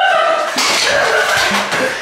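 Men yelling and shouting excitedly, mixed with a background music track.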